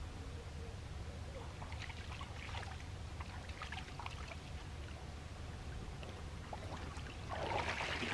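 Light splashing of hands moving in shallow river water as a carp is released, over a steady low rumble. Near the end a louder rush of water pouring and dripping off a mesh fish sling as it is lifted out of the river.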